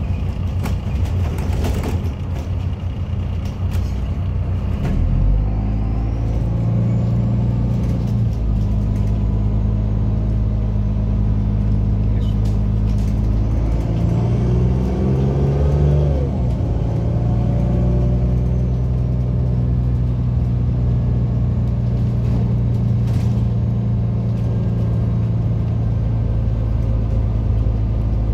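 MAZ-203 city bus engine and drivetrain heard from inside the passenger cabin, its note stepping and shifting a few times in the first half as the bus gets under way, then running steadily at cruising speed.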